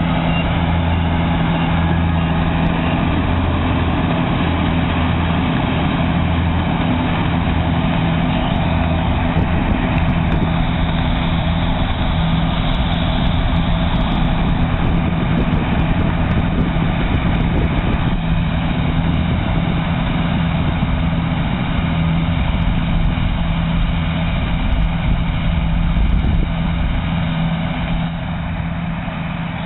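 Kubota combine harvester running steadily: a low, even engine hum with a dense mechanical noise over it, easing off slightly near the end.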